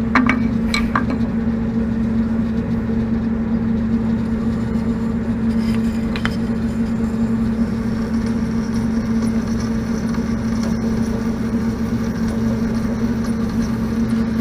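Bandsaw motor running with a steady hum while cutting through a Delrin plastic block, with a few light clicks about a second in and again around six seconds.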